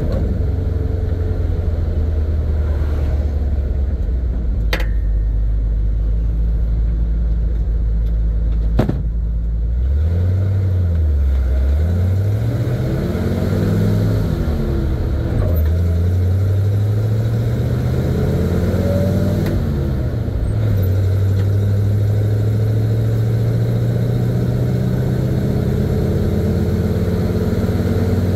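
1970 Chevy C50 dump truck's engine heard from inside the cab, first running low and steady, then pulling away through the gears: the engine note rises and drops back at each upshift, about three times from about ten seconds in, before settling into a steady cruise. Two sharp clicks sound a few seconds apart before it pulls away.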